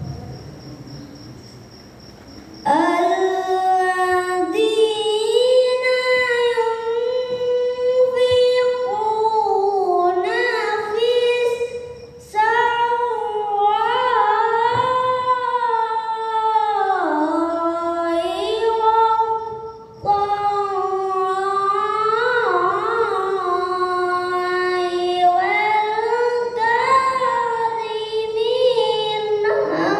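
A young boy reciting the Qur'an in the melodic tilawah style into a microphone: long held phrases with rising and falling ornamented melismas. He comes in with a new phrase about three seconds in and pauses for breath around twelve and twenty seconds in.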